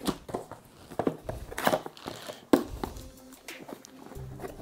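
Handling noise from unpacking a laptop: plastic wrap rustling and a cardboard box being moved, with several sharp knocks and taps, the loudest about two and a half seconds in.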